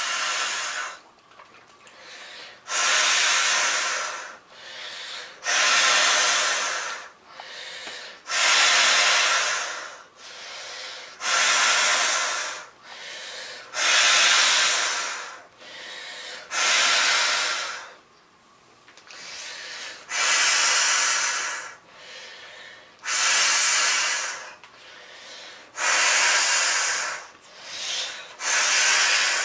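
A person blowing up an inflatable beach ball by mouth: about ten long, loud breaths blown through the valve, roughly one every three seconds, with quieter breaths drawn in between.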